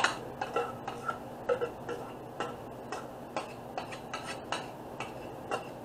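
A utensil tapping and scraping pineapple puree out of a stainless steel mixing bowl: irregular light clicks, about two or three a second, some with a brief metallic ring.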